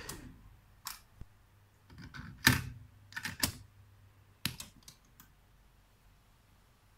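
Piano-key transport buttons of a Sony CF-6500 cassette boombox being pressed: a run of sharp mechanical clicks and clunks, the loudest about two and a half seconds in, as the deck is set to play. After that only a faint steady hum remains while the tape starts.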